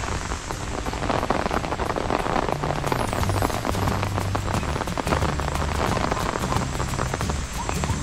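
Rain pattering on an open umbrella overhead: a steady, dense ticking of many close drops.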